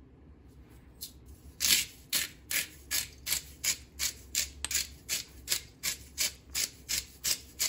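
A McCormick sea salt grinder being twisted by hand, grinding salt in short, regular rasping strokes at about three a second, starting about a second and a half in.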